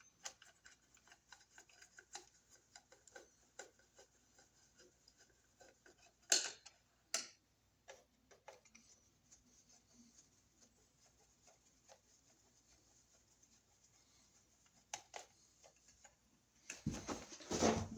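Faint scattered clicks and light taps of hands and tools working on a wall outlet, with two sharper clicks about six and seven seconds in and a louder scraping clatter near the end.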